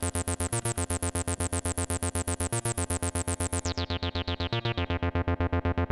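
Roland TB-03 bass synthesizer playing back a step-programmed bass line of straight 16th notes, about eight notes a second. A bit over halfway through, the tone turns darker and duller as its bright top end falls away.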